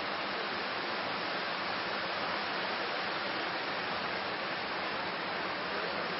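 Steady, even hiss with no change and no other sound: the background noise of the recording.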